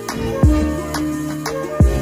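Background music with a steady beat: a deep drum hit about half a second in and another near the end, with sustained melody notes over it.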